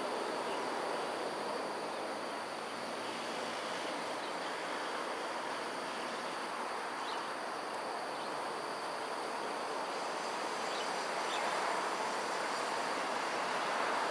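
Steady outdoor background noise, an even hiss with no clear bird calls, broken by a few faint short high ticks.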